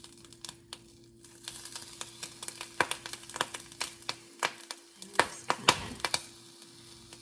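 Scattered sharp taps and crackles of ham and cheese being handled and broken to fit in a frying pan, with light sizzling and a faint steady hum underneath.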